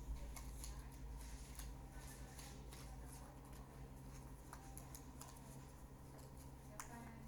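Faint, scattered clicks and ticks of small tools and parts being handled while a smartphone is taken apart, with one sharper click near the end, over a steady low electrical hum.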